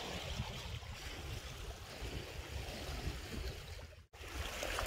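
Outdoor lakeside ambience: a steady rush of water and wind noise with uneven low rumble on the microphone, broken by a brief dropout about four seconds in.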